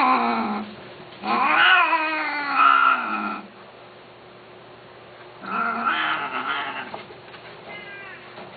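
A cat meowing in long, drawn-out calls, three loud ones with the longest lasting about two seconds, and a faint short one near the end.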